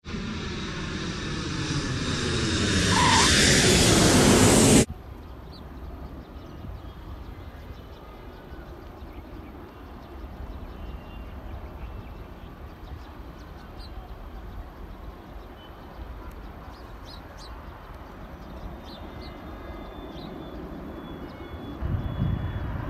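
A loud jet-like rush rises for about five seconds, its pitch swirling as a flyby's does, then stops dead. After that there is a steady low rumble with a few faint bird chirps. Near the end the rumble grows louder and gustier, as from wind on the microphone.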